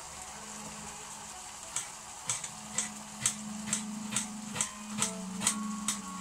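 Kitchen knife slicing onion on a plastic chopping board, tapping the board about twice a second from about two seconds in. Underneath is the steady hiss of a pan of curry simmering.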